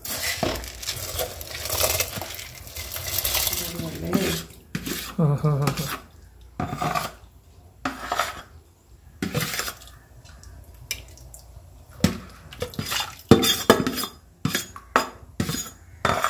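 Stainless steel ladle stirring in a steel pot of simmering coconut-and-spice rice liquid, first a dense scraping rush, then from about six seconds in a run of separate sharp clinks and knocks as the ladle strikes the pot and bowl while rice is scraped into the pot.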